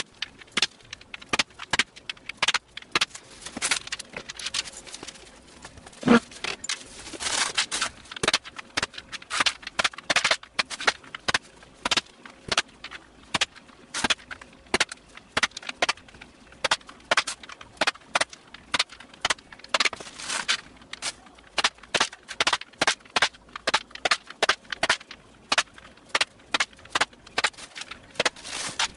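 Metal T-nuts being set one after another into the holes of a CNC spoilerboard: a run of sharp knocks, about two or three a second, some coming in quick bunches.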